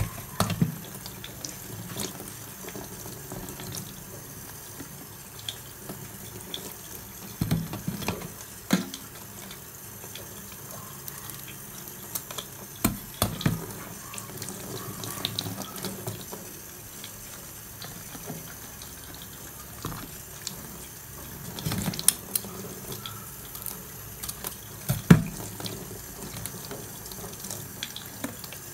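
Tap water running into a plastic tub as whole raw shrimp are washed by hand, with sharp knocks now and then from handling the shrimp in the tub.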